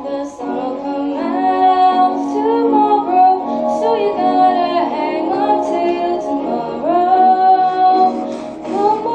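A woman singing a song over instrumental accompaniment, in phrases of held and gliding notes.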